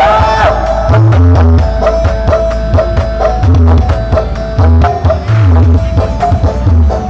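Loud music from a sound system: heavy bass beats with hand-drum-style percussion under a wavering, bending melody line.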